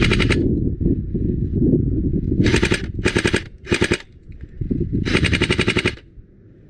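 LCT AK-12 airsoft electric gun with electric blowback firing five short full-auto bursts, a rapid mechanical rattle of the gearbox and blowback cycling, the last burst the longest. Wind buffets the microphone throughout.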